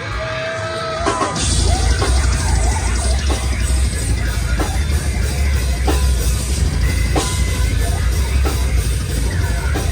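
Heavy rock band playing live: after a thinner opening with a few held notes, the full band comes in loud about a second in, with drum kit, heavy bass and distorted guitars.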